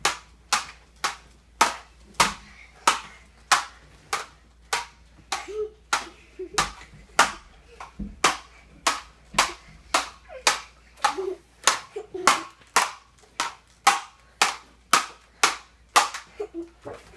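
A steady series of sharp smacks, about two a second, with brief bits of children's voices between them.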